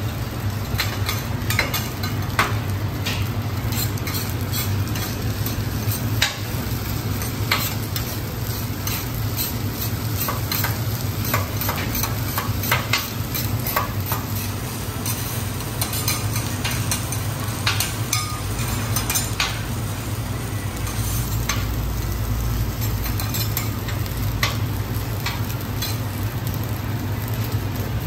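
Garlic fried rice sizzling on a steel teppanyaki griddle while two metal spatulas toss and chop it, clacking and scraping against the plate in many short, irregular strikes. A steady low hum runs underneath.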